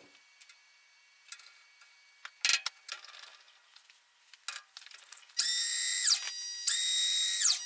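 Light clicks and knocks of handling a steel rod at a milling vise. Then a small electric motor whines twice, each time for under a second: it spins up to a steady high pitch and winds down.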